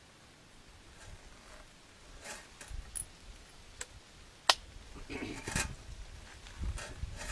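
Metallic clicks and rattles of a Martini-action .32-20 single-shot rifle being handled, with one sharp click about four and a half seconds in.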